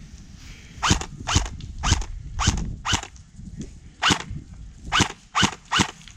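KWA TK.45 Tekken gas blowback airsoft pistol firing single shots, about nine in all at uneven gaps of roughly half a second.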